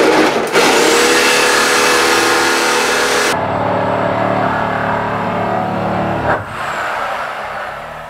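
Reciprocating saw cutting through the steel roof pillar of a car body shell, its motor running under load, with a blade he thinks has gone blunt. About three seconds in, the bright cutting noise stops abruptly and a duller sound carries on, fading near the end.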